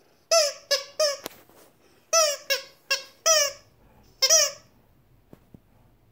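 Squeaker in a plush hedgehog dog toy squeaking as a dog chews it: eight short squeaks, each dipping in pitch, in quick runs of three, four and one, stopping about four and a half seconds in.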